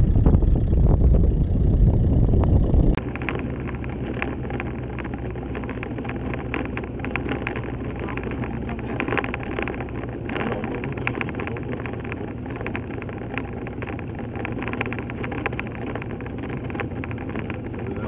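Wind buffets the microphone loudly for about three seconds. It cuts off sharply, and a vehicle's engine takes over, running steadily while it drives along a rough dirt track, with frequent small clicks and rattles from the bumpy surface.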